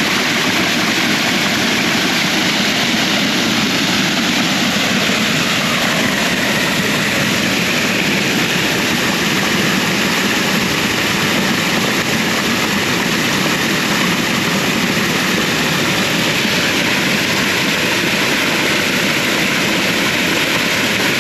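Small waterfall pouring over a rock ledge into a stream, a loud, steady rush of water.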